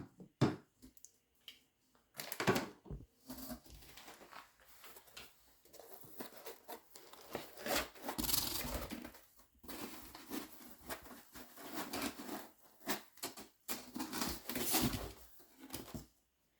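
Unpacking a boxed 3D printer by hand: packaging rustling and parts being lifted out, with scattered knocks and scrapes.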